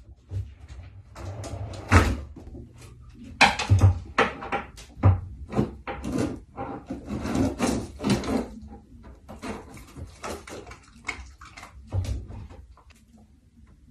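A husky pulling open a kitchen drawer and rummaging through it: irregular knocks and clatter from the drawer and the things inside, mixed with scuffling.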